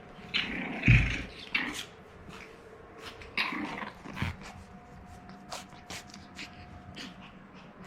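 French bulldog puppy making several short, noisy dog sounds, the loudest about a second in, followed by a few light clicks.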